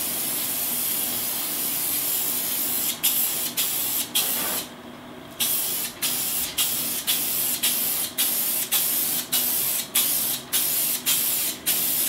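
Aerosol can of solvent-based glossy inkjet fixative lacquer spraying: one long hiss for about three seconds, a few shorter bursts and a brief pause, then a run of short bursts about two a second.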